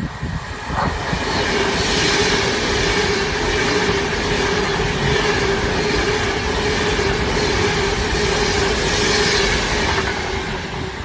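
Class 390 Pendolino electric train running through a station at speed: a loud steady rush of wheels on rail with a steady whine, building about a second in and easing off near the end as it clears.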